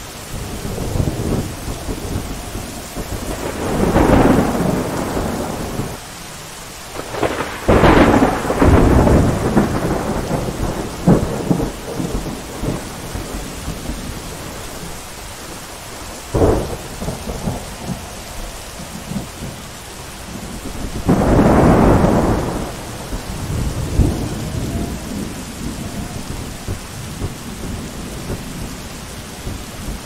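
Thunderstorm: steady rain with thunder rolling several times, a rumble about four seconds in, a longer one around eight seconds, a short sharp crack past the middle and another long roll near the end.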